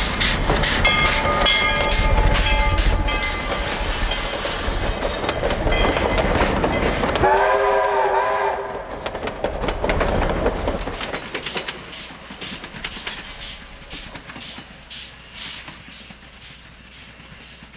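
Southern Pacific 18, an oil-fired 3 ft narrow-gauge 4-6-0 steam locomotive, passing close with evenly spaced exhaust beats and wheels clacking over the rail joints. Its coaches then roll by and fade as the train moves away. About seven seconds in, a short wavering pitched call sounds over the rolling.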